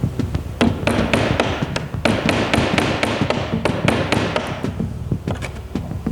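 Rapid, irregular tapping and knocking on wood, with a rasping hiss through the middle of the passage. Faint background music runs underneath.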